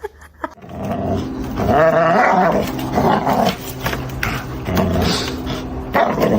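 Dog growling and grumbling in several drawn-out, wavering growls with short pauses between them.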